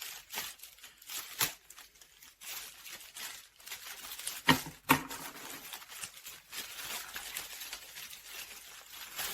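Packaging being handled and opened by hand: plastic crinkling and rustling, with a few sharp clicks or knocks, the loudest two about four and a half and five seconds in.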